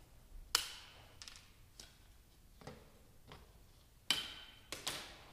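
Irregular sharp metallic clicks and clinks, each with a short ring, from handling a circular saw and a new metal-cutting blade during a blade change. The loudest comes about four seconds in.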